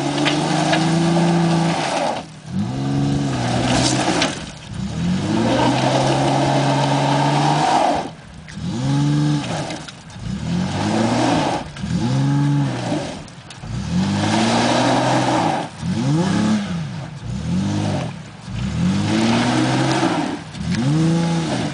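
Toyota Tacoma pickup's engine revving again and again, rising and falling about every one to two seconds with a few longer held revs, with a rushing noise of wheels spinning in mud and gravel as the truck rocks back and forth in its ruts.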